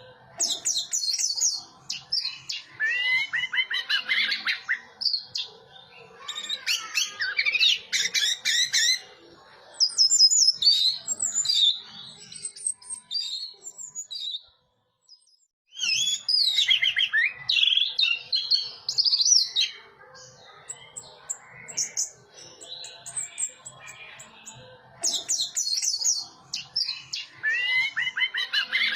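Orange-headed thrush singing: long, varied phrases of rapid whistles and warbles, broken by short pauses, with a brief complete break about halfway through.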